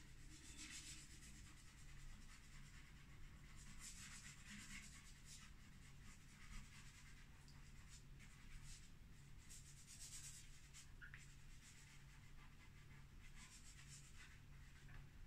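Faint scratching and rubbing of a chalk pastel worked across the painting surface in short, irregular strokes, over a low steady hum.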